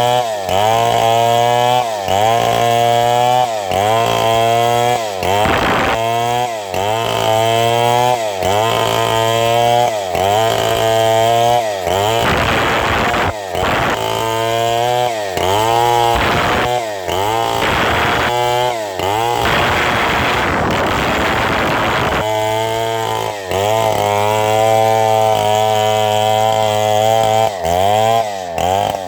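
Two-stroke chainsaw cutting through wood at high throttle. The engine's pitch sags and recovers about once a second as the chain loads up in the cut. Through the middle stretch the sound turns rougher and noisier for several seconds.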